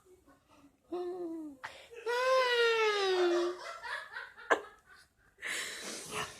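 A person laughing: short voiced laughs at first, then a long high laugh that falls in pitch, a sharp click midway, and a breathy burst near the end.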